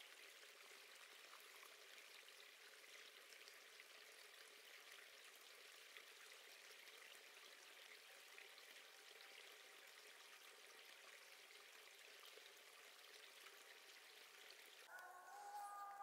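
Small woodland stream trickling over rocks and leaves: a faint, steady water sound. About a second before the end, a few steady tones come in.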